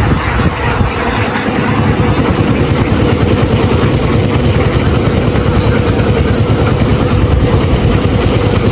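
An engine running steadily with a fast low pulsing and a steady hum.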